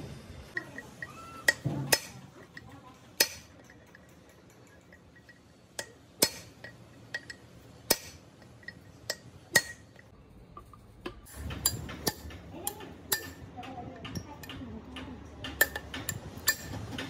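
Sporadic sharp metal clinks and taps of steel tools and parts against the open planetary gear housing of a Volvo excavator swing drive, some leaving a brief ringing. They come irregularly, a few seconds apart at first and closer together near the end.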